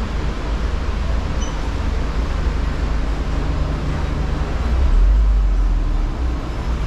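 Tour trolley's engine idling, a steady low rumble that grows louder about five seconds in as it is approached.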